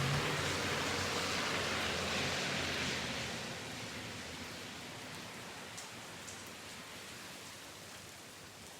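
Rain falling steadily with an even hiss that slowly fades after about three seconds, with a couple of single drop ticks near the middle.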